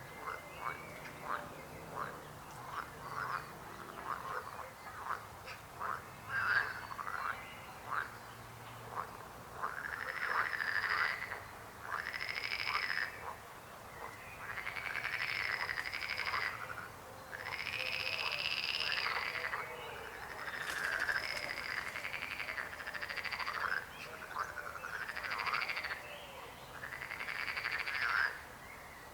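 A chorus of frogs croaking. Short croaks come in quick succession at first. From about ten seconds in they give way to longer croaking calls, each lasting about a second, one after another.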